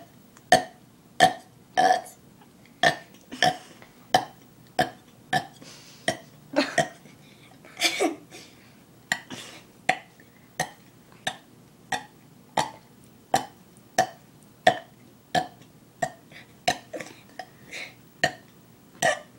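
A person burping over and over in a quick run of short burps, about one to two a second. A longer burp falls in pitch about eight seconds in.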